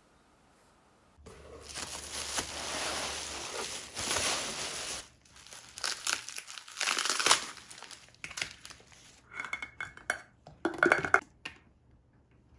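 Plastic bubble wrap crinkling and rustling as it is pulled off small metal tins of wet cat food. Near the end come several short ringing clinks of the tins knocking together as they are set down and stacked.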